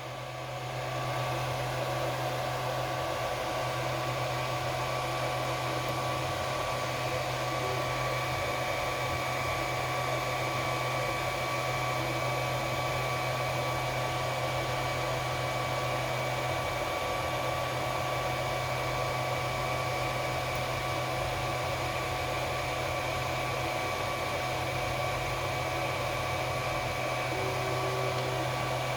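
3D printer running, a steady whirring hum with several constant whining tones.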